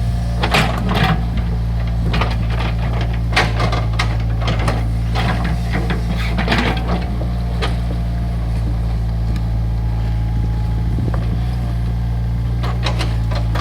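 Excavator's diesel engine running steadily, with irregular clunks, knocks and scrapes from the machine digging soil.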